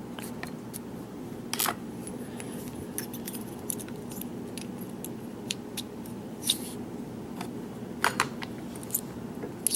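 Scattered light metallic clicks and taps of a lock and small tools being handled while a shim works at the lock's circlip, over a steady low hum.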